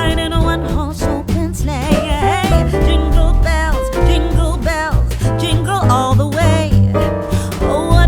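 Background music: a song with a singer's vocal over bass, guitar and a steady beat.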